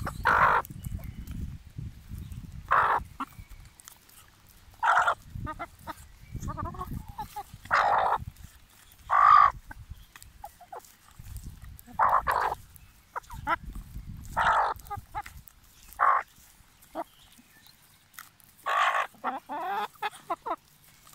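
A flock of Bresse chickens giving short calls every couple of seconds, about ten in all, as they crowd round and peck at a piece of meat held out by hand. Low rumbling noise comes and goes between the calls.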